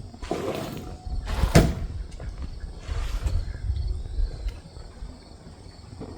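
A hand dolly being moved on a trailer: a sharp metal clank about a second and a half in, then low rumbling and knocking.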